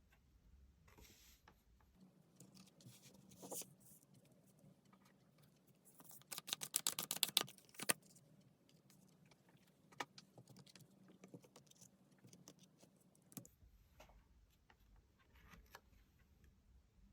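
Tarot cards being handled: scattered light taps and clicks, with a dense run of rapid clicks, like a shuffle, from about six to eight seconds in, and single sharp clicks near ten and thirteen seconds.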